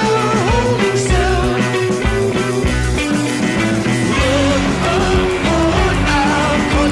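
Psychedelic rock song: loud distorted guitars, bass and drums, with a sung vocal line.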